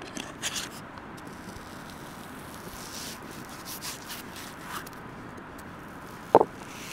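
Stone pestle mashing butter and dried herbs in a stone mortar: soft rubbing and scraping, with a short sharp knock about six seconds in.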